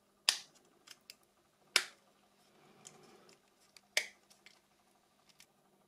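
Three sharp clicks with lighter ticks between them, from the small parts of a Nokia 6300 phone being handled and fitted together.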